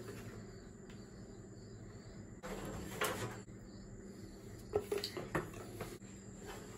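Faint handling noises of a paint can and wooden stir stick: a few light knocks and scrapes, about three seconds in and again near five seconds, over a steady low hum.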